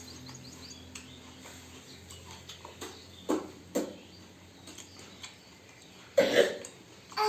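Short mouth and throat sounds of a person eating rice in water: two brief sounds close together about three seconds in, then a louder cough-like burst about six seconds in.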